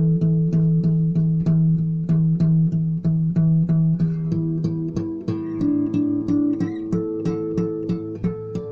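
Instrumental music: a plucked guitar picks a steady run of notes, about four a second, over sustained bass notes, with the chord changing partway through.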